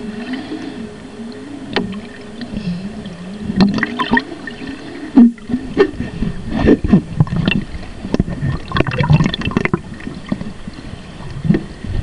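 Muffled underwater water movement heard from inside a sealed plastic food container, with scattered knocks and bumps on the container. A wavering low hum runs through the first half, and the knocks come thickest from about halfway on, the loudest just after the five-second mark.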